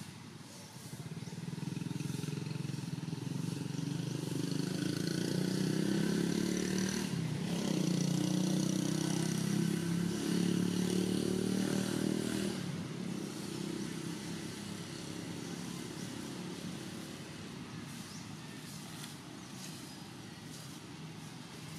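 A motorbike engine passing by: it grows louder over the first few seconds, is loudest in the middle, then fades away.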